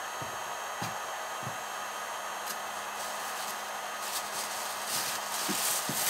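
Hyundai H 2200 Expert heat gun running steadily on its stand, its fan blowing with a faint steady hum while it heats toward its 600 °C setting. From about four seconds in, irregular rustling and crinkling joins it.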